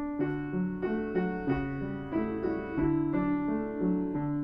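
Background piano music: a gentle melody of single notes over a low accompaniment, changing about twice a second.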